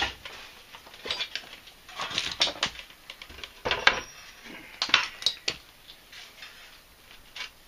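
Irregular metallic clanks and knocks as a small engine is set down and shifted on a bare steel lawn-tractor frame, test-fitting it to line up the bolt holes. The knocks come in clusters, the clearest about two, four and five seconds in.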